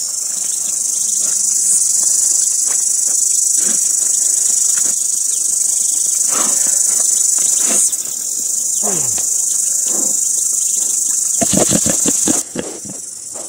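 Steady, high-pitched insect chorus, with a few faint short calls over it. Near the end a pig snuffles right up at the microphone, and the insect chorus then cuts off suddenly.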